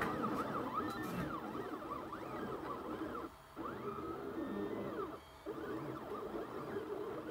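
Stepper motors of a Rostock delta 3D printer whining as it prints, the pitch gliding up and down in quick arcs as the carriages speed up and slow down. The motion stops briefly twice, about three seconds in and again about five seconds in.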